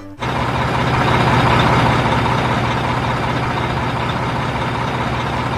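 Diesel engine of a truck-mounted mobile crane running steadily, a low even hum under broad engine noise.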